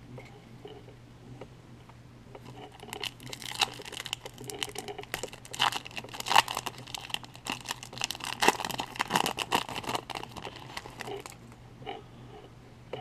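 A foil baseball-card pack wrapper being torn open and crinkled by hand. The crackling runs densely from about two and a half seconds in until shortly before the end, after lighter rustling at the start.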